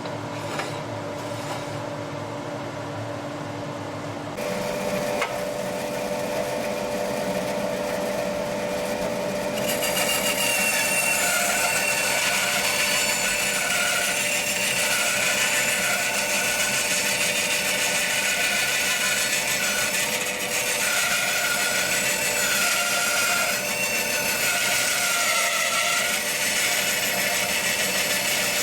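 Charnwood W715 10-inch bandsaw running, then cutting wood from about ten seconds in: a steady hiss of the blade through the timber with a wavering whine over it.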